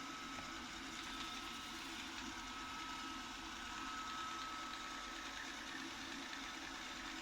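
Robot vacuum cleaner running: a steady motor whir with a constant high whine over a lower hum.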